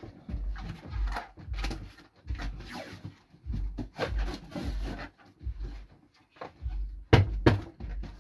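Cardboard shipping box being packed down by someone standing and treading on it: repeated dull thuds with rustling of cardboard and packed goods, about one to two a second. A couple of sharper knocks come near the end.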